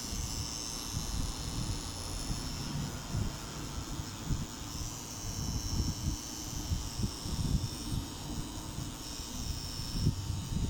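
Electric tattoo machine running steadily with a high whine, over irregular low rumbling and thumps.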